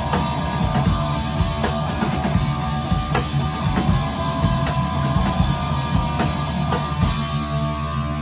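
Rock band playing with a drum kit and guitar, the drums keeping a steady beat; about seven seconds in the drumming stops and a held chord rings on.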